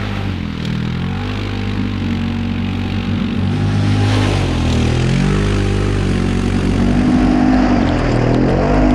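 Segway Snarler 570 ATV engine revving hard as it churns through mud, its pitch dipping and climbing again several times over a steady hiss.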